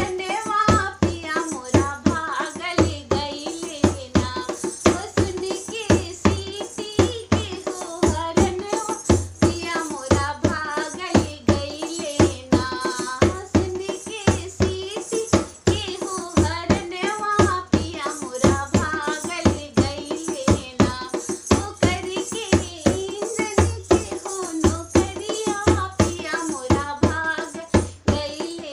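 A woman singing a Bhojpuri folk song over a steady drum beat.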